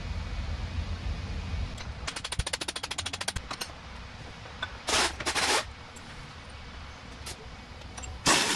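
Air impact wrench running the yoke nut down onto a Meritor differential thru shaft in short bursts, the loudest near the end. A rapid run of clicks comes about two seconds in.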